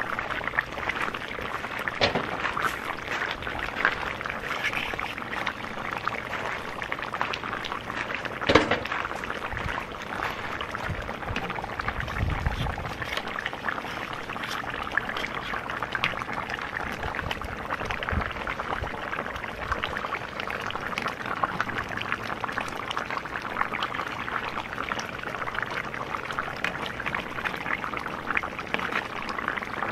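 Beef and onions bubbling and sizzling in their juices in a cast-iron cauldron, with a metal ladle scraping and clinking against the pot as it stirs; the sharpest knock comes about eight and a half seconds in.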